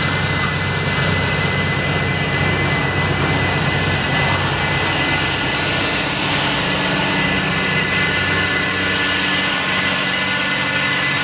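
Tractor engine running steadily under load while pulling a potato planter, with a constant high whine over the engine's drone.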